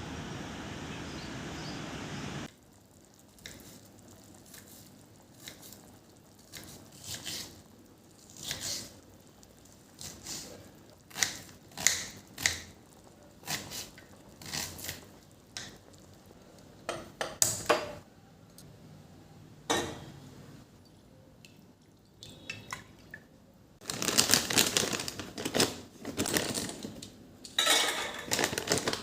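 Kitchen utensils clinking and knocking: dishes, pots and cutlery handled, in separate knocks with pauses between them and a denser stretch of clatter near the end. A steady hiss-like noise runs for the first couple of seconds and cuts off suddenly.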